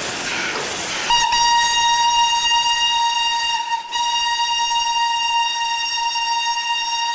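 Steam whistle of FS Gr.981 rack steam locomotive 981.005 sounding one long steady blast of about six seconds, after about a second of hissing steam.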